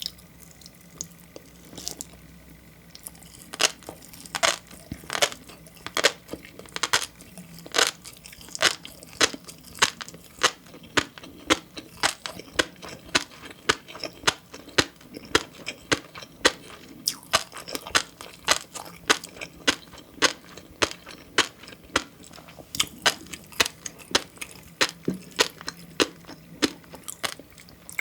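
Close-miked eating sounds: a fast, uneven run of sharp wet pops and crunches, about two to three a second, from food bursting between the teeth. They start about three seconds in.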